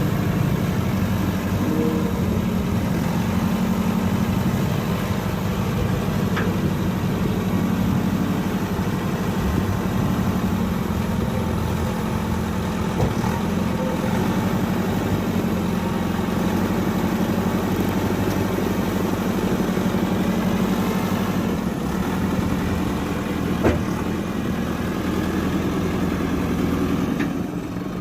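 JCB 3CX backhoe loader's diesel engine running steadily at an even, low speed, with a few faint knocks along the way.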